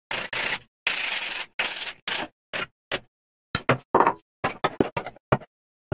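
Hand sanding a wooden chair cross brace with a sanding block: a run of rubbing strokes of sandpaper on wood, the longest about a second in, then shorter, quicker strokes with silent gaps between them.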